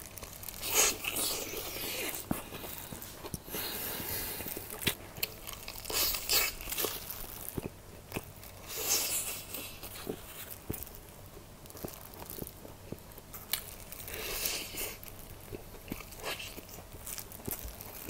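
Close-miked biting and chewing of sauced Korean fried chicken (yangnyeom): crunchy bites into the fried coating come every few seconds, with softer chewing between them.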